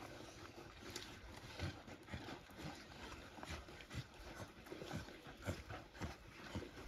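African wild dogs feeding at a buffalo carcass: a run of short, irregular snapping and knocking sounds, several a second.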